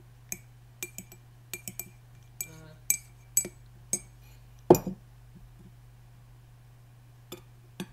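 Glass teacup clinking: about a dozen light, ringing clinks over the first four seconds, then one heavier knock just under five seconds in, and two faint clicks near the end.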